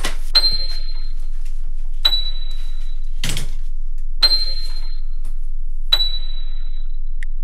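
Horror-film score: bell-like pings about every two seconds, each with a ringing high tone that dies away, over a steady low drone. A whoosh about three seconds in.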